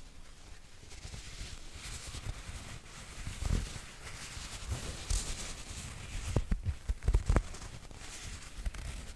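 Soft footsteps on a hard floor as a person shifts and turns in place: scattered low thuds, with several close together about two thirds of the way through, over a faint rustle.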